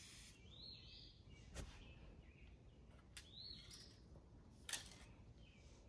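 Near silence with faint bird chirps twice, each rising then falling, and a few sharp clicks, the loudest near the end.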